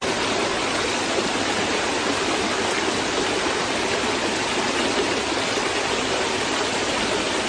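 A steady, even rushing noise that holds at one level throughout, with no distinct events in it.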